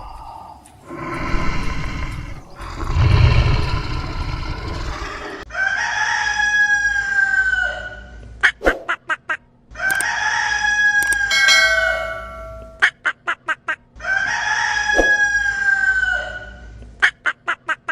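Rooster crowing three times, each a long cock-a-doodle-doo that falls slightly in pitch, with a quick burst of short clucks after each crow. Two rough, low, noisy sounds come before the first crow.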